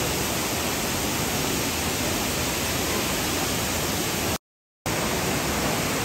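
Rushing water, a steady dense hiss, broken by a gap of silence about half a second long just after four seconds in.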